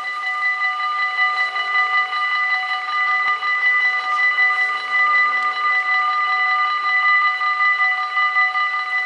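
The electric warning bells of a Dutch AHOB level crossing, four bells ringing rapidly and without a break. They sound while the red lights flash and the half-barriers come down for an approaching train.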